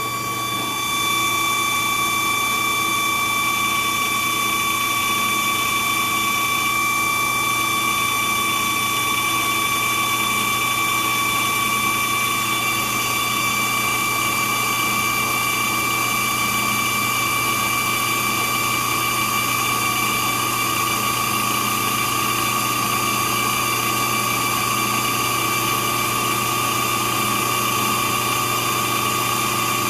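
Drill press and a high-speed grinder running together in a steady whine while the drill press chuck is ground true to remove its runout. The sound steps up slightly about a second in and then holds steady.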